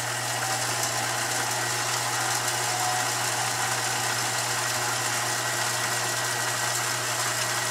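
Billiard cue lathe's electric motor running at a steady speed with the cue shaft spinning: a constant low hum with a faint hiss above it.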